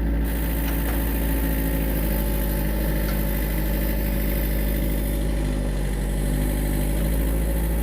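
Excavator's diesel engine running steadily as the machine lifts a heavy diesel fuel transfer tank.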